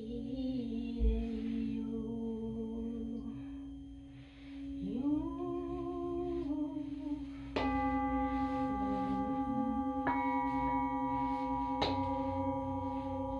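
Singing bowls ringing under a voice holding and sliding between long sung notes. About halfway a bowl is struck and rings on, and two more strikes on bowls of other pitches follow, so that their tones ring together.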